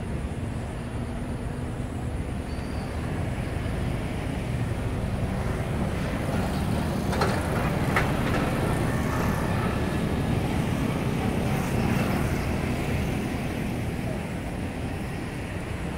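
Low, distant engine rumble that swells to its loudest mid-way and then eases off, with a couple of faint clicks near the middle.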